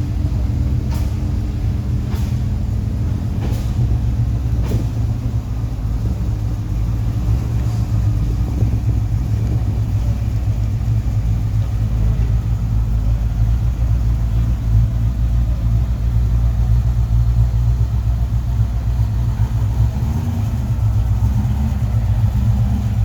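GT40 recreation's engine running steadily at idle, a deep, even low rumble with no revving. A few sharp clicks sound in the first few seconds.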